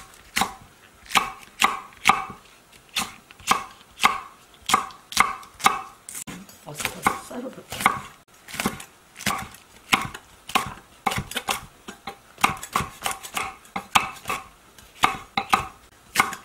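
Chef's knife chopping on a wooden cutting board, slicing chili peppers and, near the end, a green onion: a steady run of sharp knocks, about two to three strikes a second.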